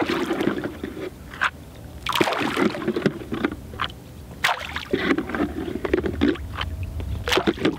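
Irregular knocks and clatters with bouts of water splashing around a small boat on a lake.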